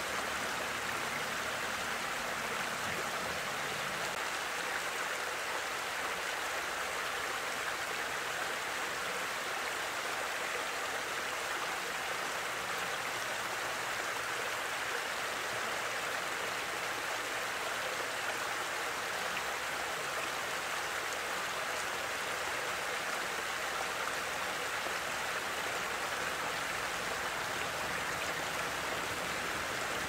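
Water spilling over a low weir into a foaming pool, a steady, even rush of running water.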